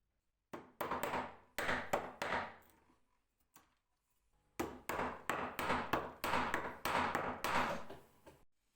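Repeated sharp knocks on wood, like hammer or mallet blows on the stool's wooden parts, in two runs of several blows each, about three a second, with a short pause between the runs.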